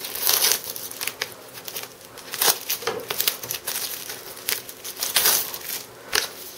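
Cardboard and clear plastic packaging of a boxed SSD crinkling and rustling as it is handled and pried open by hand, in irregular bursts with louder crackles a moment in, about two and a half seconds in and about five seconds in.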